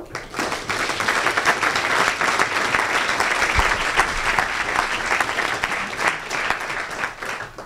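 Audience applauding, many hands clapping together; the clapping sets in at once and thins out near the end.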